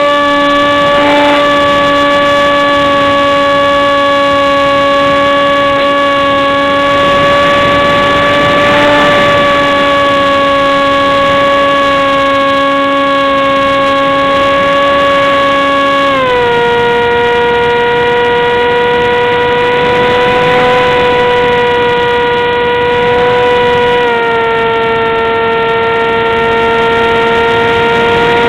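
RC airplane's motor and propeller in flight, heard close up from a camera on the plane: a loud, steady whine made of several pitches. It drops in pitch about halfway through and again about three quarters of the way through.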